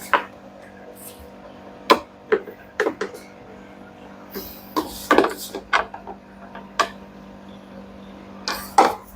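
Irregular knocks, clicks and clatters of parts and tools being handled while a twin-tub washing machine's tub is fitted back into its body, over a steady low hum.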